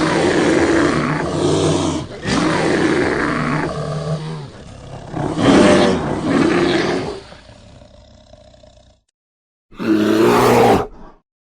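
A large wild animal roaring: three long roars one after another, the third the loudest. After a short gap there is one more brief roar near the end that cuts off abruptly.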